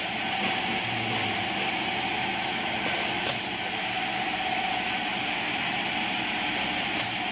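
Continuous dough dividing machine running with a steady whir, with a faint sharp click about every three and a half seconds.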